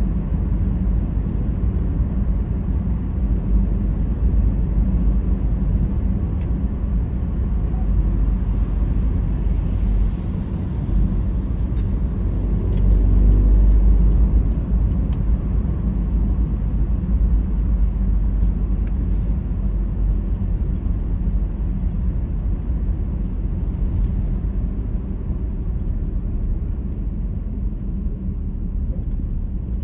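Steady low rumble of a car driving: engine and tyre noise on the road, swelling briefly about a dozen seconds in, with a few faint clicks.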